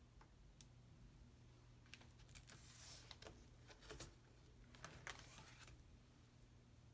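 Faint rustling of a heavy, collage-covered sketchbook page being handled and turned: a few soft ticks, then two short bursts of paper brushing and crackling around the middle.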